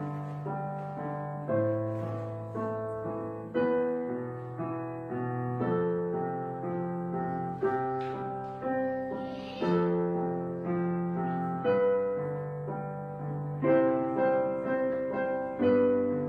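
Slow background piano music, with a new chord struck about once a second and each one ringing and fading.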